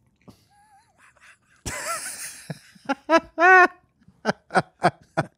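Men laughing. A breathy burst comes about a second and a half in, then a run of short pitched laughs.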